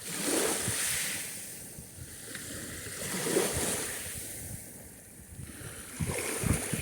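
Sea surf: waves washing in and breaking on the shore, the noise swelling and fading about every three seconds. Low rumbling gusts come in near the end.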